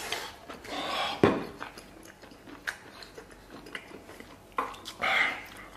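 Close-up chewing and eating noises of crisp blanched beef tripe, which crunches in the mouth. There are louder bursts of eating noise about a second in and again near the end, with small clicks in between.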